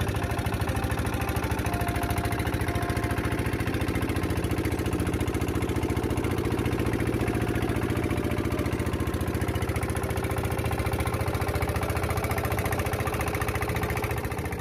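Small boat's engine running steadily under way, a loud, even, fast pulsing over a low hum.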